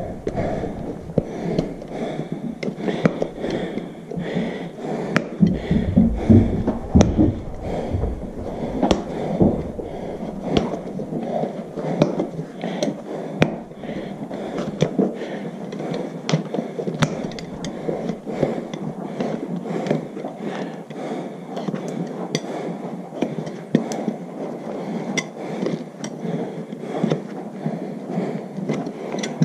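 Farrier's hand tools working a horse's hoof wall during a trim: a continuous run of scraping strokes dotted with many small sharp clicks and knocks.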